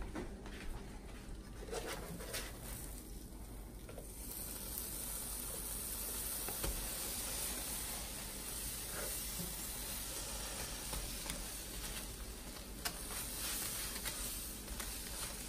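Grilled cheese sandwiches sizzling in a frying pan: a steady hiss that grows louder about four seconds in, with a few faint clicks.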